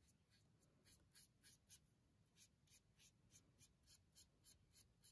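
Faint, rhythmic swishing of a flat paintbrush stroking paint onto the edge of a stretched canvas, about three strokes a second, starting about a second in.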